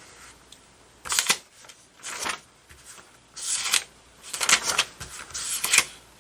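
Pages of a paper instruction manual being leafed through: a series of short papery rustles about a second apart.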